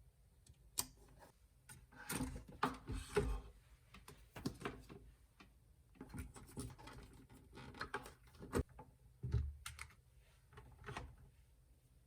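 Small objects being handled and set down on a hard surface: irregular clicks, light knocks and brief scraping, some in quick clusters.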